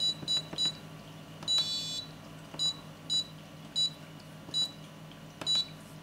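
Piezo buzzer on an Arduino keypad alarm beeping high and short as the alarm is armed: three quick beeps, a longer beep about a second and a half in, then single beeps at uneven gaps.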